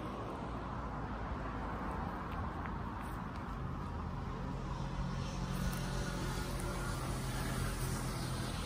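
Road traffic noise, with a vehicle's low engine hum coming in about halfway through and growing slightly louder.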